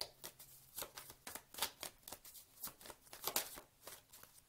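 Tarot deck being hand-shuffled: a quick, irregular run of soft card clicks and slaps, about three or four a second.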